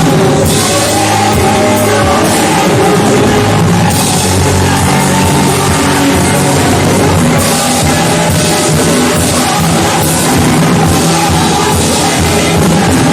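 Loud, continuous band music with a drum kit and sustained pitched instruments, in a rock style.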